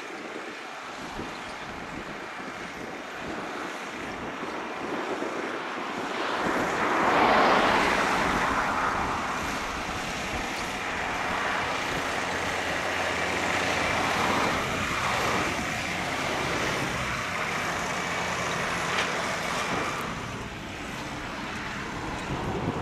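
Traffic passing on a busy road, one vehicle swelling loudest about seven seconds in, mixed with the steady running of a New Holland T7.235 tractor ploughing.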